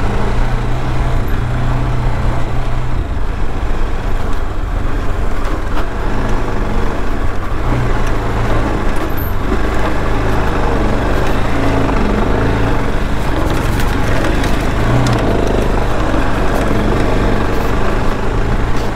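Motorcycle engine running while riding along a rough dirt track, its pitch rising and falling with the throttle several times, with a few knocks from the bumps.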